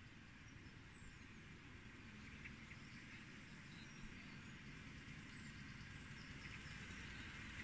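Faint outdoor ambience: a steady low rumble with a few brief high bird chirps, growing slowly louder as a distant miniature railway train approaches along the track.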